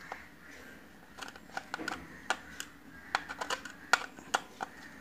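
Small, sharp clicks and taps at irregular intervals as wires and terminal screws are handled on a plastic electrical switch board, the loudest about halfway through and again near the end.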